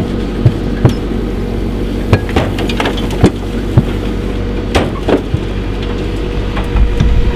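Backhoe loader's engine running steadily while it hoists an overturned off-road racing buggy on a chain, with irregular sharp knocks and clanks throughout.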